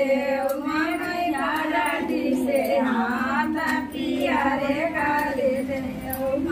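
Several women's voices singing a devotional song together, with long held notes.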